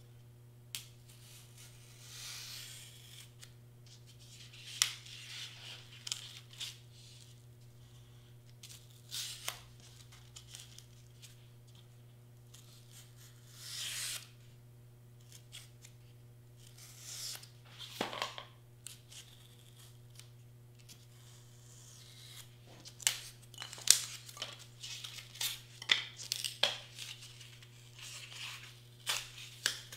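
Marker strokes on board and handling of cut board pieces on a cutting mat: scattered short scratching swishes and light clicks, busier in the last several seconds, over a steady low hum.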